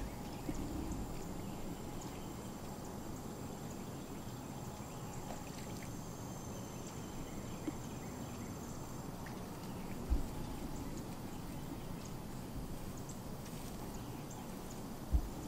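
Steady outdoor background noise, a rustling hiss, with a faint thin high-pitched whine through the first half. Two short low thumps come about ten seconds in and near the end.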